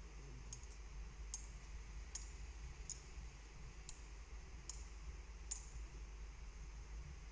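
A metal thurible swung on its chains during incensing, giving faint, sharp metallic clinks about once every three-quarters of a second, seven or so in a row, over a low steady hum.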